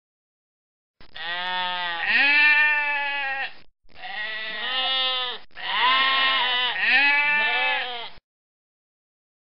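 Goats bleating: several long, pitched bleats in quick succession, starting about a second in and stopping about a second before the end.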